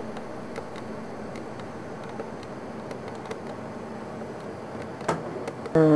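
Steady hiss of room and recording noise with a few faint ticks. Near the end a voice comes in loudly on held notes that change in pitch.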